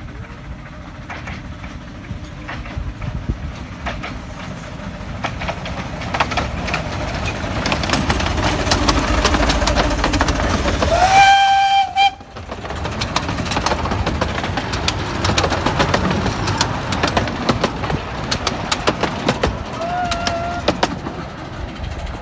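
A 15-inch-gauge steam locomotive hauling carriages runs past, with clicking and rattling from the wheels on the track that grows louder as it comes near. Its steam whistle blows about halfway through, rising into a held note for about a second, and sounds again more briefly and more faintly near the end.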